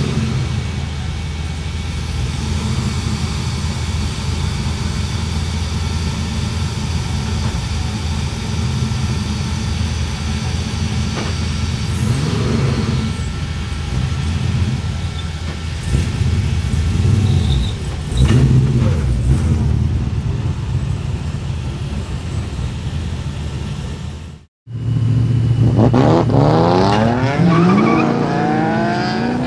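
Whipple-supercharged 6.9-litre LS3 stroker V8 of a drift car idling steadily, with a few short blips of the throttle. After a sudden cut, it revs repeatedly, its pitch climbing and falling.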